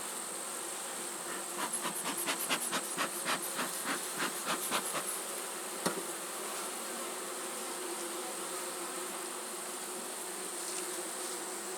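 Honeybee colony buzzing steadily around an opened hive. A run of irregular light clicks comes from about one and a half to five seconds in, with one more sharp click about six seconds in.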